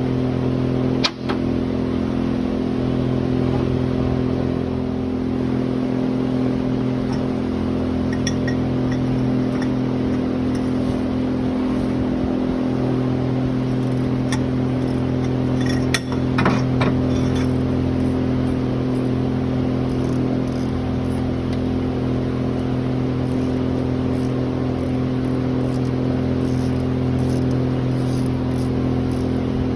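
Engine running steadily at an even idle, with two brief sharp knocks, one about a second in and one about sixteen seconds in.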